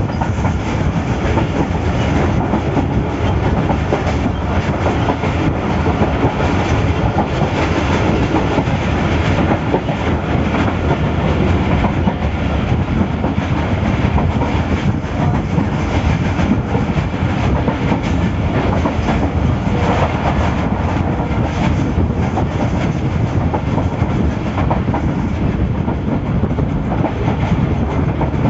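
Pakistan Railways passenger coach running steadily at speed, heard from its open doorway: a loud, continuous rumble and rattle of wheels on the track.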